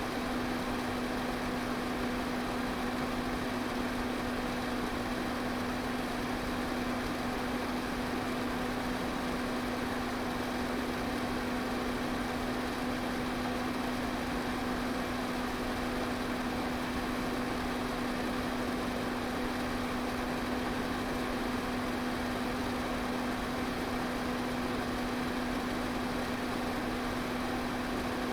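Electric pedestal fan running steadily: an even whoosh of moving air over a constant low motor hum.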